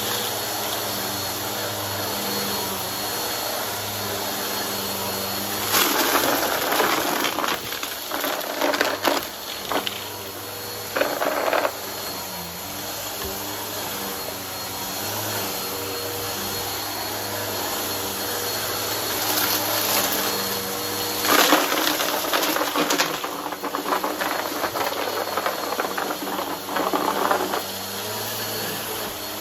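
Vacuum cleaner running with a steady motor hum and a thin whine, broken by loud crunching and rattling as debris from a mess pile is sucked up through the brushroll, in a stretch about six seconds in and again from about twenty seconds in.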